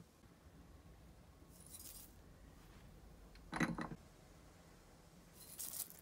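Dry spices tipped into a glass mixing bowl: a short hiss of falling spice, a louder glassy clink about three and a half seconds in, and a brief rattling hiss of whole coriander seeds landing near the end.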